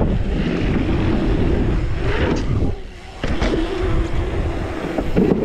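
Knobby mountain-bike tyres humming on a paved pump track at speed, with wind rumbling over the camera. The tyre hum cuts out for about half a second around three seconds in, then comes back.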